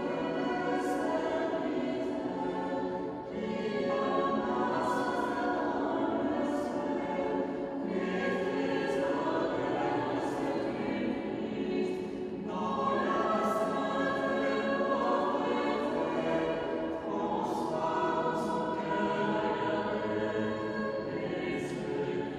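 Mixed choir singing unaccompanied liturgical chant, in sustained phrases of about four to five seconds with short breaks between them.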